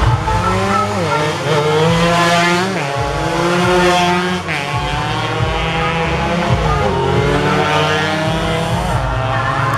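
Several two-stroke racing motorcycles revving hard, their engine pitch climbing and dropping back again and again as they run through the gears past the fence.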